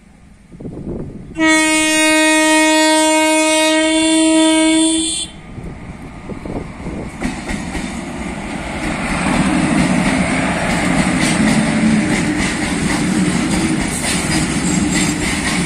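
Indian Railways electric freight locomotive sounding one long air-horn blast of about four seconds, a steady multi-note tone. Then the rumble and clatter of the locomotive and its hopper wagons passing close by grows louder and stays loud.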